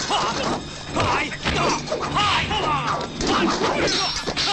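Staged fight sound effects: repeated blows, hits and weapon clashes, with shouts from the fighters, over a film score.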